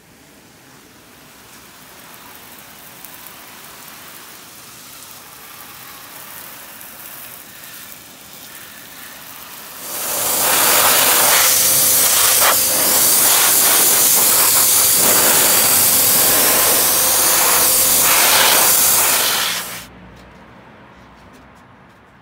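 Water spraying onto a muddy off-road motorcycle to wash it: a steady hiss that slowly grows over the first ten seconds. It then becomes a much louder, harsher spray with a faint steady whine under it, and cuts off suddenly near the end.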